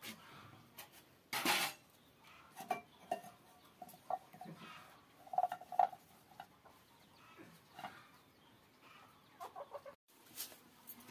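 Chickens clucking in short, repeated notes, with one brief loud noisy burst about a second and a half in.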